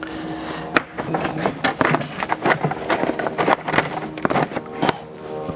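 A quick run of clicks, knocks and scrapes as plastic and metal parts are handled and worked loose in a car's stripped front end.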